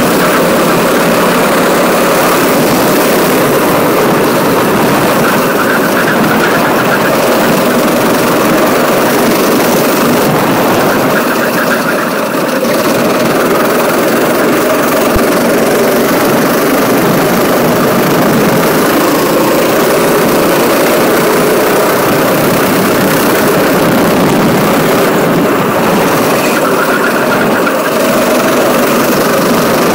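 Go-kart engine running hard around the track, heard from on board the kart, loud and continuous. It eases off briefly about twelve seconds in.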